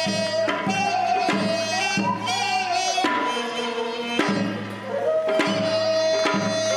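Korean traditional instrumental music: a melody that bends and slides between held notes over steady low drum strokes.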